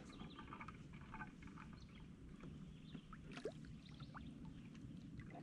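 Faint lake ambience: quiet water movement around a kayak, with scattered faint bird chirps and one short rising call about three and a half seconds in.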